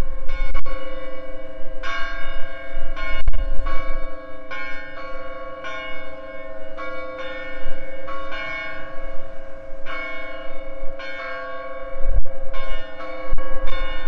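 Church bells ringing, struck roughly once a second in an uneven sequence, each stroke ringing on over a steady hum. Gusts of wind rumble on the microphone now and then.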